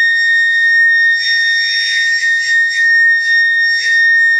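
A 220-volt mini siren sounding a steady, loud, high-pitched wail. It is the pump's no-water alarm going off: the pressure switch stayed at low pressure past the timer relay's delay.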